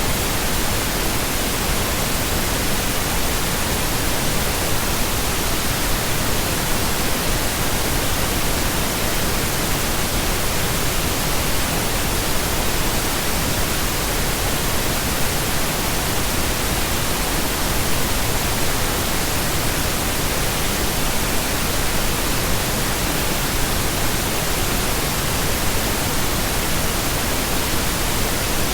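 Continuous pink noise: a steady, even hiss with no change or break.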